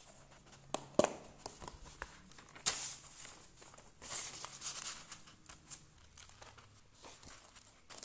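Cardboard food box being opened by hand: sharp clicks and taps as the tucked lid flap is freed, then paper rustling as the liner sheet inside is folded back.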